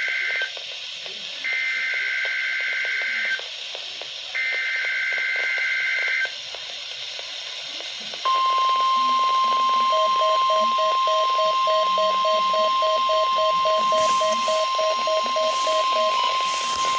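NOAA Weather Radio Required Weekly Test played over a weather radio receiver's speaker. It opens with three short bursts of SAME digital header data, a shrill two-pitch warble about a second apart. About eight seconds in comes the steady 1050 Hz warning alarm tone, which holds to the end. A lower beep pulses about three times a second under the alarm tone for about six seconds.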